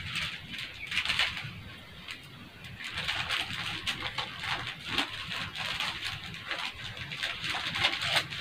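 Paper wrapper of a sterile glove pack being unfolded and smoothed flat, rustling and crinkling off and on.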